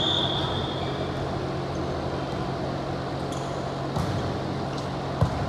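A long, high, steady whistle blast fading out about a second in, then the steady hum of a sports hall with a soft knock near four seconds and a short sharp smack near the end.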